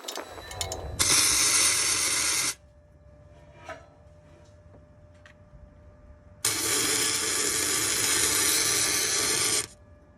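Electric arc welder laying two weld beads on the steel burner sleeves. Two runs of steady crackling hiss, the first about a second long and the second about three seconds, each starting and cutting off abruptly.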